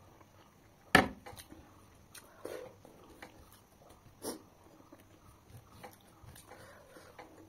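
A sharp knock about a second in, like a steel bowl set down on a table, then fingers mixing rice and curry on a banana leaf: soft squelching and rustling with a few small clicks.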